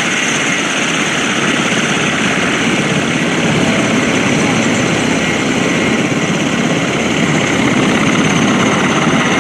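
Sukhoi Su-26's nine-cylinder Vedeneyev M-14P radial engine and propeller droning steadily as the plane manoeuvres overhead, growing a little louder near the end as it comes closer.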